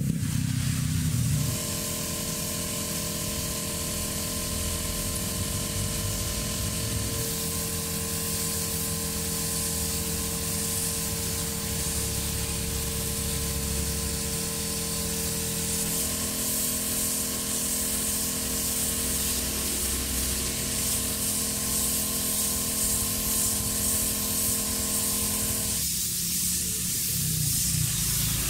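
Aerosol spray paint can hissing steadily as paint is sprayed onto a motorcycle engine cover. Underneath, a held chord of steady tones shifts twice and stops near the end.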